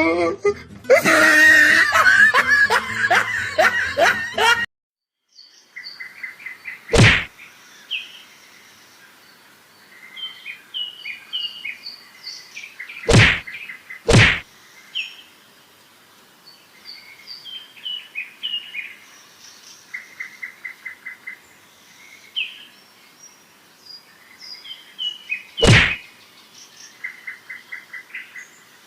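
Birds chirping and trilling: many short calls and rapid buzzy trills, broken by four sharp knocks, two of them close together around the middle. It opens with a few seconds of loud, wavering voice-like sound that cuts off suddenly.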